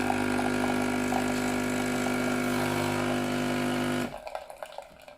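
DeLonghi EN670 Nespresso machine's pump humming steadily as it pushes water through a capsule, then cutting off suddenly about four seconds in as the extraction ends. It is brewing without leaking now that the brew-head O-ring has been replaced.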